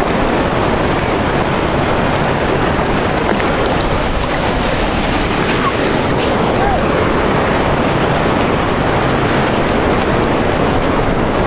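Steady loud rushing of dam water, with wind buffeting the microphone.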